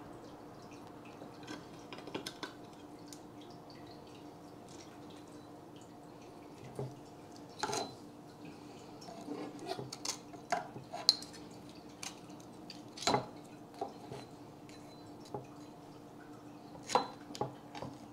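Scattered clicks and knocks of metal tongs and a kitchen knife against a steak and a wooden cutting board as the steak is handled and sliced, over a faint steady hum.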